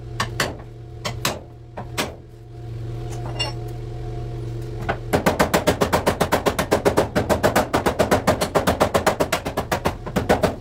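Hammer striking the car body's sheet metal: a few separate blows in the first two seconds, then fast, even hammering, about seven blows a second, from about five seconds in. A steady hum runs underneath.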